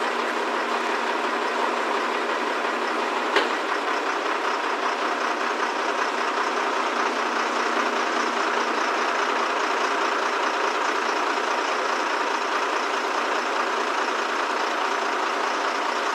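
Crane engine running steadily as it hoists a boat out of the water, with one sharp click about three seconds in.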